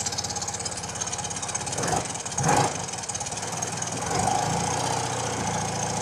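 BMW R90/6 air-cooled flat-twin idling steadily with a valve cover removed, its exposed rockers and valve train running quietly, with a brief louder noise about two and a half seconds in.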